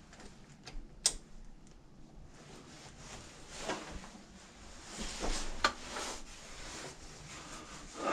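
Scattered sharp clicks and soft knocks among quieter rustling, from someone moving about a small room; the sharpest click comes about a second in and another just before six seconds in.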